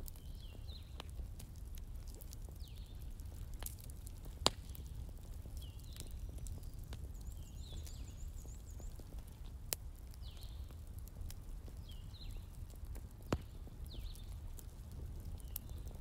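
Crackling fire: a steady low rumble with scattered sharp pops, three of them louder than the rest. A short, high, falling call repeats about every second and a half over it.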